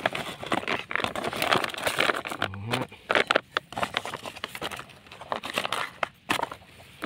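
A plastic rice sack crinkling and rustling as it is pulled back off a wire-mesh trap, with scattered sharp crackles and clicks.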